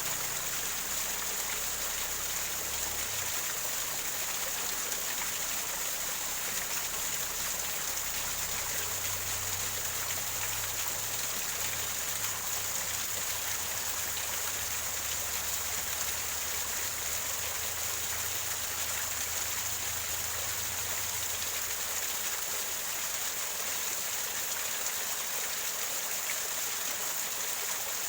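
Small waterfall running over rocks: a steady rush of splashing, gurgling water.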